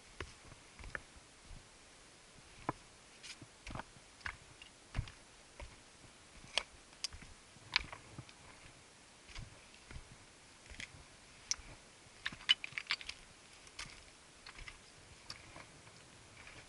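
Footsteps on a rocky mountain trail: boots stepping over loose stones, with irregular clicks and a few dull knocks, and a quick cluster of sharper clicks about twelve seconds in.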